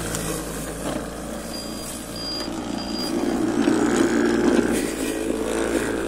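DIY remote-controlled electric lawnmower running: a 120 W 24 V electric-scooter motor spinning a brush-cutter blade through grass while hoverboard hub motors drive the wheels, a steady motor hum that gets louder for a couple of seconds midway. Three short high beeps sound in the first half.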